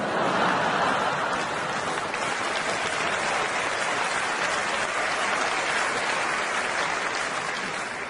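Audience applauding: a dense, steady round of clapping that eases off slightly near the end.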